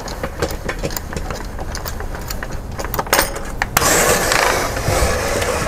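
Crank of a BLUU cantilever patio umbrella being wound down: a run of small clicks from the crank mechanism, with a couple of louder clicks about three seconds in, then a rush of swishing as the canopy folds closed.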